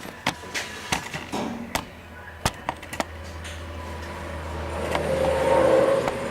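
Acer Ultima 3VK vertical milling machine: a few sharp clicks and knocks, then its spindle motor starts about two and a half seconds in with a steady low hum that builds as the spindle comes up to speed.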